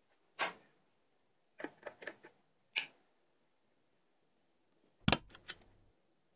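Short clicks and knocks of a corded steam iron being lifted and handled, scattered, with quiet between. The loudest is a quick cluster of knocks about five seconds in.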